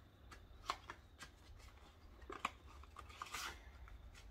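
Soft crinkles and rustles of a paper gift envelope being handled and opened, a few short crackles and a longer rustle near the end as a card is pulled out.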